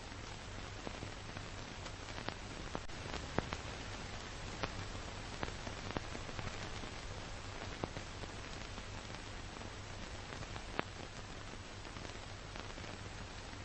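Steady hiss with a low hum and scattered clicks and pops: the surface noise of an old film transfer, with no other sound standing out.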